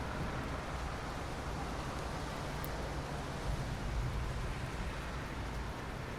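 Steady rain falling, a continuous even hiss over a deep low rumble.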